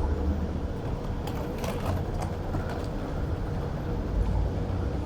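Low steady rumble of trams and road traffic in a city street, with a faint steady hum and a few short clicks or rattles about a second and a half in.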